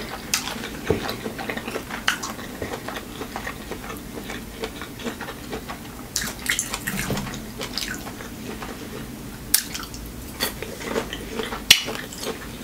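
Close-miked chewing and wet mouth sounds from eating shrimp, broken by scattered sharp clicks and smacks.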